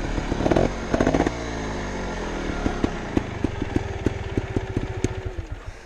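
Montesa Cota 315R trials motorcycle's two-stroke single-cylinder engine blipped twice in short bursts, then the revs fall away and it runs low with a regular popping tick before the sound fades out near the end.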